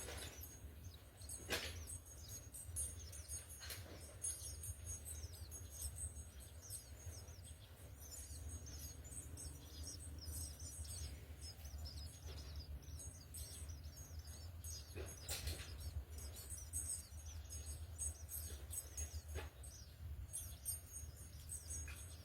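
House sparrows chirping: a constant stream of short, high, falling chirps in quick succession. A few sharp clicks come through, over a steady low hum.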